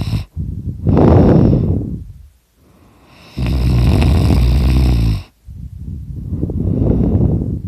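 A person snoring really loud in their sleep. A low buzzing snore ends right at the start, then come a rushing breath, a second buzzing snore lasting about two seconds, and another rushing breath.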